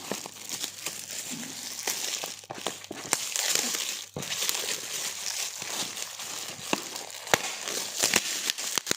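Gift wrapping crinkling and crumpling in hands as a present is unwrapped, with scattered sharp crackles throughout.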